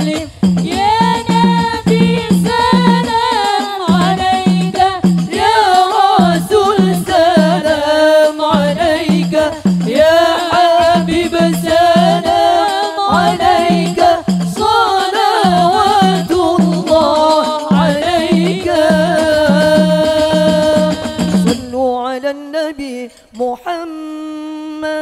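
Women's voices singing sholawat, an Arabic devotional song in praise of the Prophet, into microphones over a steady beat. About 22 s in the beat and the fuller singing stop, leaving one quieter voice that holds a note.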